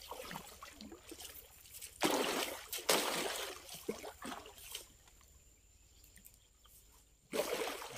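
Water splashing and trickling off a cast net full of fish as it is handled, with louder bursts about two seconds in and again near the end.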